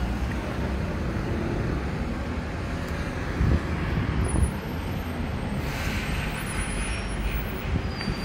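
City street traffic with a city bus driving past close by, its engine a steady low rumble, and a short hiss about six seconds in.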